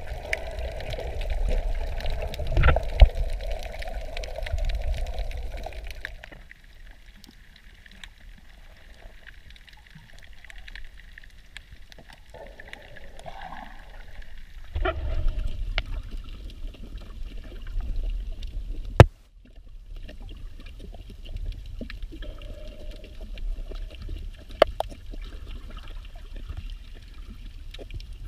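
Muffled water sound picked up by a camera held underwater while snorkelling: sloshing and gurgling, louder for the first few seconds, with a few sharp clicks and one loud knock about two-thirds of the way through.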